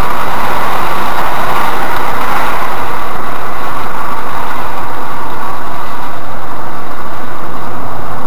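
Cabin noise of a Škoda Rapid 1.6 MPI driving down a winding hill road, its engine and tyre noise picked up by a dashboard camera's microphone as a steady, loud rushing hiss.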